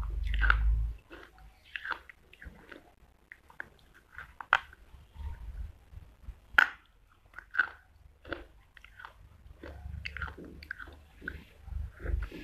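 Dry clay pieces being bitten and chewed close to the microphone: crisp crunches scattered between quieter chewing, with two sharp loud cracks about four and a half and six and a half seconds in.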